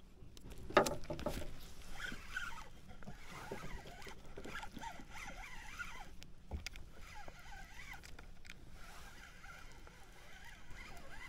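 Water lapping and sloshing against the hull of a small fishing boat, with a sharp knock about a second in.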